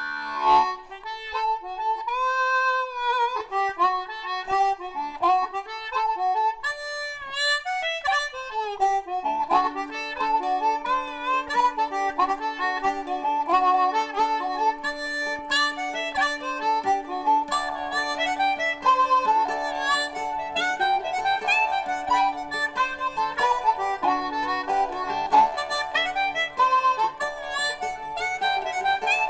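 Music: a harmonica playing a bending melody over strummed or picked acoustic guitar, with a steady held low note coming in about nine seconds in.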